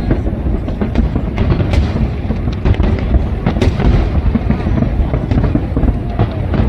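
Fireworks display going off: a dense run of sharp bangs and crackles over a continuous low rumble.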